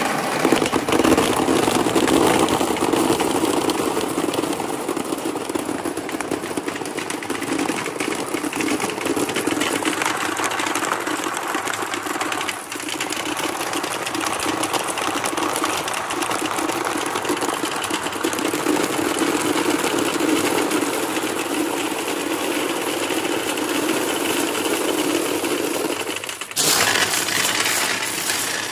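Hundreds of glass marbles rolling down a long chute and clattering into a plastic tub in a continuous stream, with a steady rumble under the clicking. About 26 seconds in, the rumble stops and a louder, brighter clatter follows as a hand sweeps through the pile of marbles in the tub.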